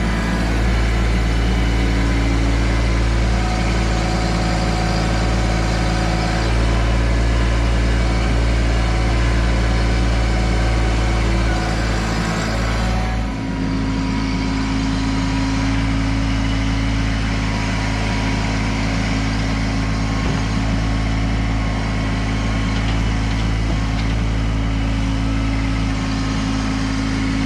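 Kubota LX2610 compact tractor's three-cylinder diesel engine running steadily, its note shifting about halfway through.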